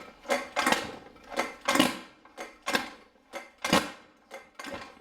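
Scooter kick-starter being kicked over and over, each stroke a metallic crackling clack with a short ring, about two a second, as the kick-start ratchet slips instead of catching and the engine does not start. The slipping and ringing come most likely from a tooth broken off the ratchet.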